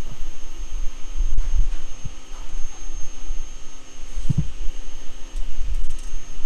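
Low, uneven rumbling hum with a few brief dull thuds, about four seconds in the clearest, and a faint steady high whine above it.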